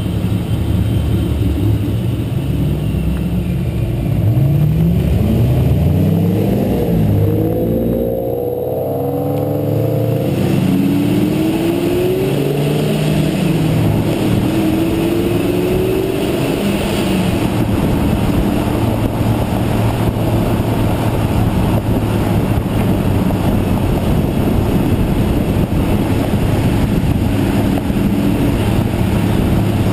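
Fifth-generation Chevrolet Camaros cruising, with a steady rush of road and wind noise at the car's flank. From about four to ten seconds in, the engine note rises several times as the cars accelerate through the gears, and it climbs again briefly a few seconds later.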